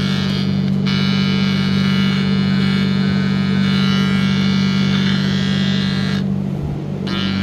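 Tone tracer probe buzzing with a steady, loud electronic tone as it picks up the tone generator's signal on the clutch switch wire at the PCM connector, a sign the wire carries through. The upper part of the buzz drops out briefly near the end.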